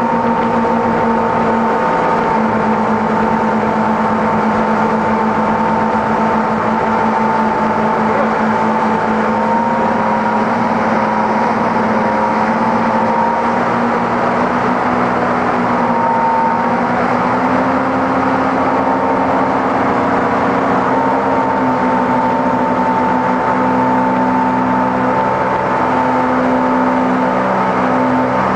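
Motorboat engine running steadily at water-skiing tow speed, a constant hum whose pitch shifts slightly now and then, over the rushing water of the boat's wake.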